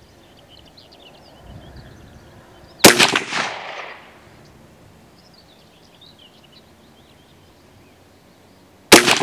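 .22 WMR rimfire carbine firing two single shots about six seconds apart, each a sharp crack with a short echo trailing off. Faint birdsong chirps in the background.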